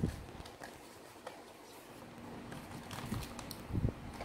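Handling of a plastic Nerf blaster and its barrel extension: a few scattered light plastic clicks, with soft thumps near the start and near the end.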